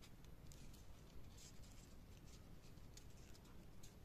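Faint crinkling and rustling of folded origami paper units as fingers slot them together: short, irregular crackles over a low room hum.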